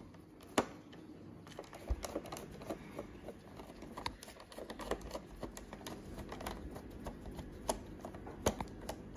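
Screwdriver backing out the small screws that hold a Roborock robot vacuum's laser distance sensor unit, with faint, irregular clicks and ticks of the bit and screws against the plastic chassis.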